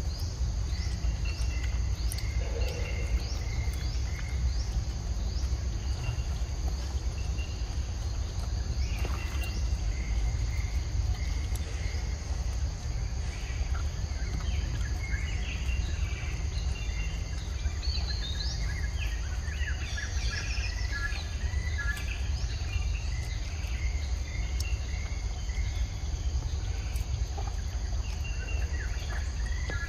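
Forest ambience: insects buzzing steadily and birds chirping over a steady low rumble. A quick run of repeated high chirps fills the first few seconds, and scattered chirps come through the middle.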